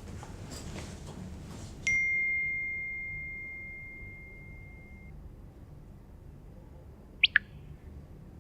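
A single clear ding starts suddenly about two seconds in: one high bell-like tone that rings out and fades over about three seconds. Near the end come two very quick, sharp chirps that fall in pitch.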